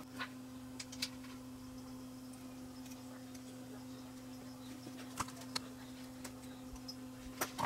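A few small, sharp clicks and taps as resistor leads are pushed through and handled on a circuit board, the loudest near the end, over a steady low electrical hum.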